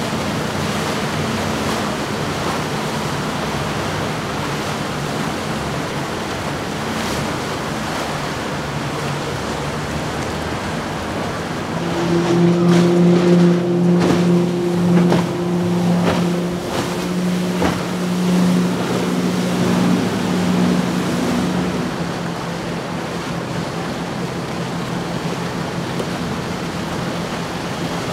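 Steady rush of wind and water from the boats' wakes. From about twelve seconds in, a passing motorboat's outboard engine drones steadily for about ten seconds, with a few knocks near its start, then fades back into the water rush.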